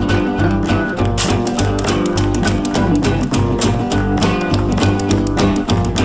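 Background music: a guitar-led instrumental passage with a steady beat.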